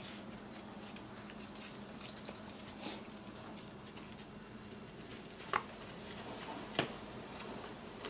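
Small clicks and knocks of a clear plastic container of dog biscuits being nosed and pushed about by puppies on a tile floor, with two sharper clacks about five and a half and seven seconds in.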